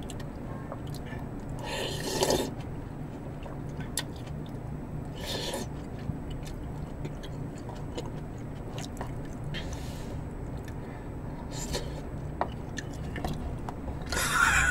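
Eating sounds: a metal spoon working in a plastic soup container and chewing, with a few short, louder noises a few seconds apart, over a steady low hum.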